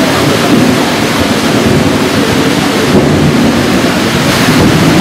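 Heavy monsoon rain pouring steadily: a loud, even hiss with a deep rumble underneath.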